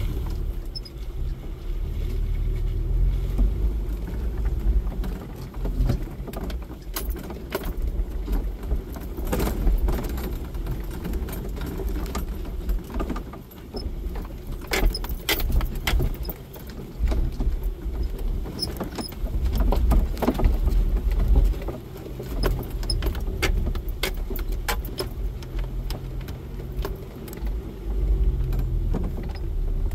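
Jeep Wrangler driving slowly over a rough dirt trail: a low engine rumble under frequent rattles, clinks and knocks as the vehicle bumps over ruts and stones.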